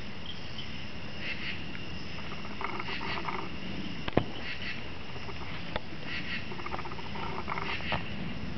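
Insects calling in short trilled bursts about every second and a half, with one sharp knock about four seconds in and a fainter click nearly two seconds later.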